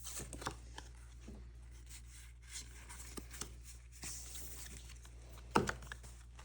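Faint handling of Pokémon trading cards being looked through and sorted: light, scattered ticks and rustles, with one sharper click about five and a half seconds in.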